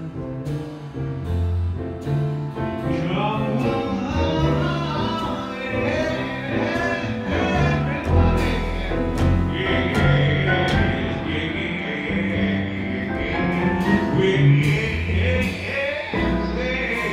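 Live jazz: a male singer scat-singing a wordless line into a microphone over grand piano, walking upright bass and drums with ride-cymbal strokes.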